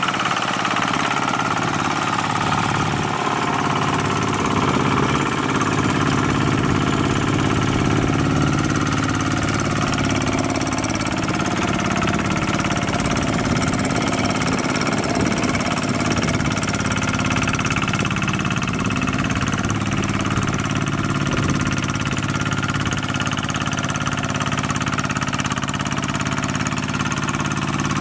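Kubota RT140 Plus hand tractor's single-cylinder diesel engine running steadily under load as its cage wheels work through wet paddy mud.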